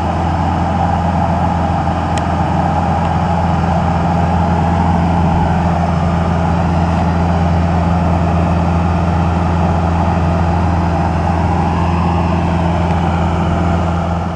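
The engine of a right-of-way tree-trimming machine running steadily with a low, even drone. It eases off slightly near the end.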